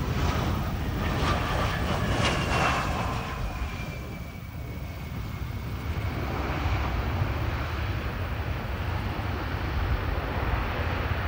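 Airbus A320's jet engines during the landing rollout: a high whine that falls in pitch over the first few seconds, then a steady jet noise. Wind rumbles on the microphone throughout.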